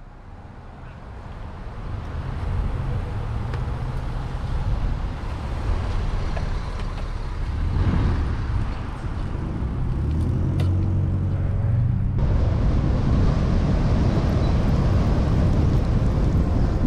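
Road and traffic noise heard from a moving bicycle, with a steady low rumble. It grows louder over the first couple of seconds and then stays level.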